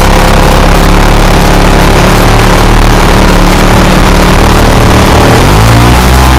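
Clipped-wing Cub's piston engine and propeller running loud and steady, picked up close from the landing gear. About five and a half seconds in, the engine speeds up and its pitch rises to a higher steady note.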